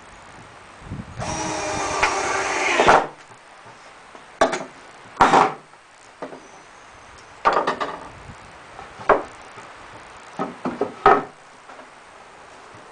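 Power drill driving screws into pallet wood: one run of about two seconds, then several short bursts.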